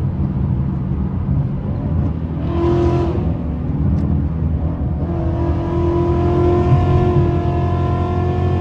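Ford Mustang V8 engine and exhaust droning at steady highway speed, heard from inside the cabin. There is a brief louder swell about three seconds in, and a steady pitched drone holds from about halfway.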